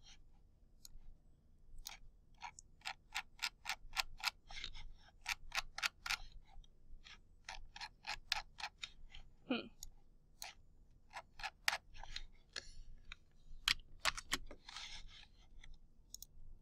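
Runs of quick, sharp clicks, several a second with short pauses between runs, from computer keys and mouse buttons as a spreadsheet is navigated.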